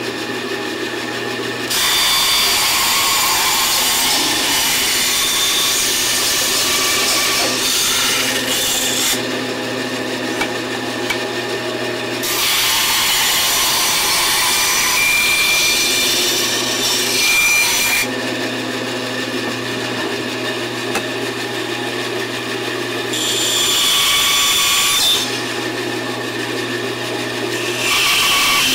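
Bandsaw running with a steady motor hum, its blade cutting through a 2x4 block. There are three long cuts, each a loud sawing hiss over the hum, and a short fourth cut starts near the end.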